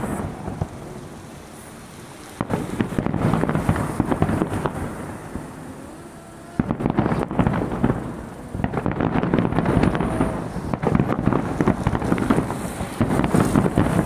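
Aerial fireworks finale: volley after volley of shell bursts, a dense run of rapid bangs and crackling. It comes in waves, easing off about half a second in and again around five seconds, then picking up at about six and a half seconds and staying dense to the end.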